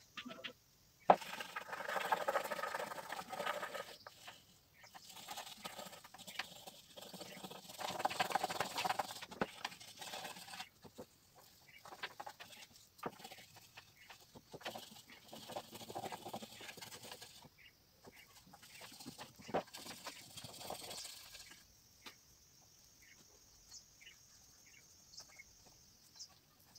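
Animal calls in several bursts a few seconds long, with a sharp knock about a second in.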